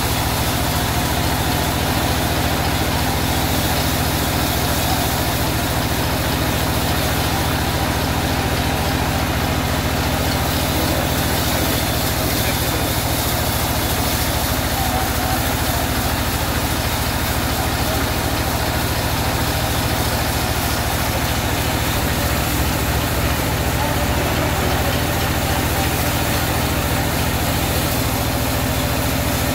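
Engine of a portable sawmill running steadily at an even speed.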